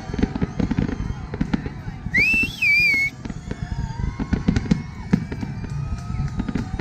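Fireworks bursting in a dense, rapid run of bangs and crackles. About two seconds in, a loud wavering whistle cuts through for about a second.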